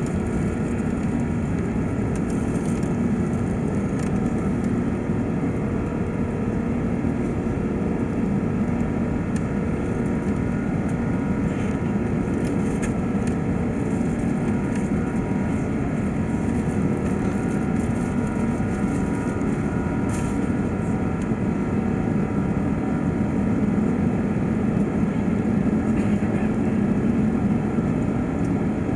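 Steady cabin noise inside an Airbus A380-800 climbing out after takeoff: a low, even rumble of its four jet engines and the airflow, swelling slightly near the end.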